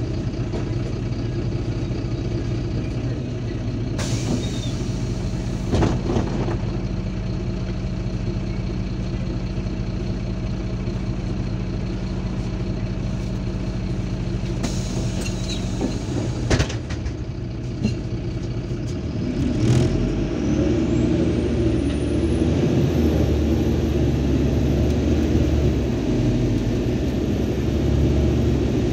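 MAZ 203 city bus idling at a stop, heard from inside the cabin, with a few short hisses of compressed air and a sharp clunk. About two-thirds of the way in the bus pulls away: the engine gets louder and a high whine rises and then holds steady.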